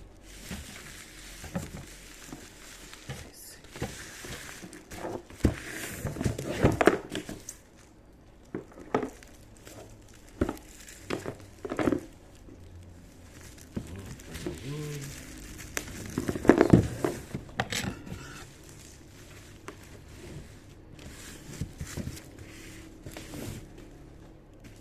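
Packaging crinkling and rustling by hand, with irregular knocks and taps as a boxed motorcycle brake master cylinder is unpacked and handled.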